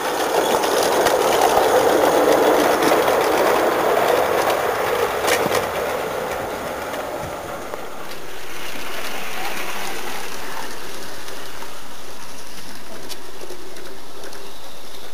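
16mm-scale live-steam garden-railway locomotives running on their track, a steady hiss with a fast mechanical rhythm, loudest in the first half. After a cut about eight seconds in, a quieter, even running sound from a train further off.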